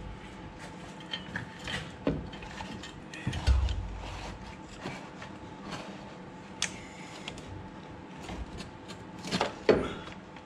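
Hand tools and metal parts clicking and knocking irregularly during work on a car's steering gear. The loudest are a dull thump about three and a half seconds in and a sharp knock near the end.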